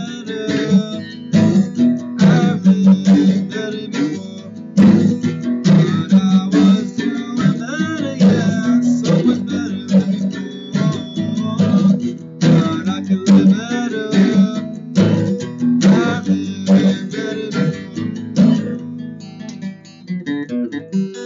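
Acoustic guitar strummed in a steady rhythm, chords ringing between strokes; the strumming thins out and grows quieter near the end.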